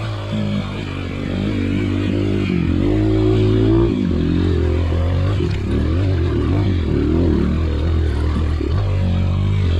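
Off-road motorcycle engine revving up and down as the bike is ridden, its pitch rising and falling repeatedly.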